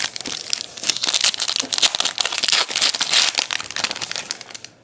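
Plastic wrapper of a baseball card pack crinkling loudly as it is torn open and crumpled by hand, for about four and a half seconds.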